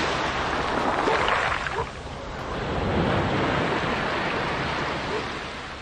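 Sea surf washing onto the beach, rising and falling in a couple of swells, then fading out near the end.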